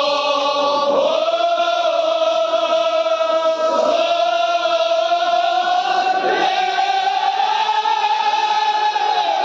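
Large crowd of men chanting together in long drawn-out phrases, with brief breaks between them and the held pitch slowly climbing.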